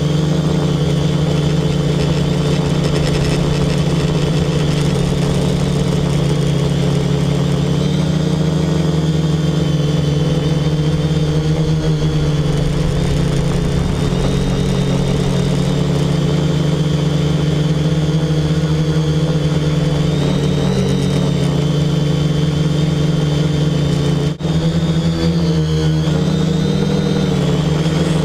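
Quadcopter's four brushless outrunner motors spinning 10x4.5 props in flight: a steady, loud multi-tone hum. About 24 seconds in it breaks off for an instant, and after that the pitch steps up and down a little with throttle changes.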